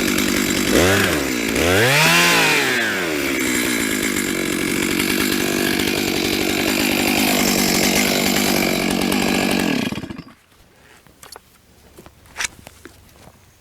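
Stihl MS 661 two-stroke chainsaw cutting wood at full throttle. Its pitch dips and climbs back twice in the first few seconds, then it runs steadily until it cuts off suddenly about ten seconds in, leaving only a few faint knocks.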